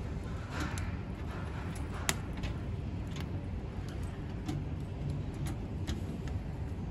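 Wood burning inside a pellet-and-wood stove, crackling with scattered sharp pops, the loudest about two seconds in, over a steady low rumble of the fire.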